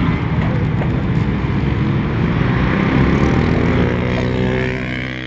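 Vintage motocross motorcycle engine running hard on a grass track, a steady engine note that rises in pitch a few seconds in as the bike accelerates.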